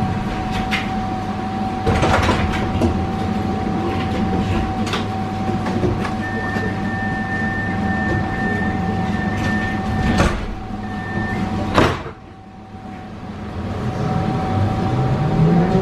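Pesa Swing 120Na tram standing at a stop with a steady electrical hum; a door warning tone sounds for about five seconds and the sliding doors close with sharp knocks. Near the end the traction motors start a rising whine as the tram pulls away.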